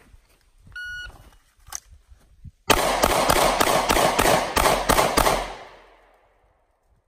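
An electronic shot timer beeps once. About two seconds later a pistol fires nine rapid shots in about two and a half seconds, three on each of three targets, with a slightly longer gap before the last three. The final shot rings out and fades over about a second.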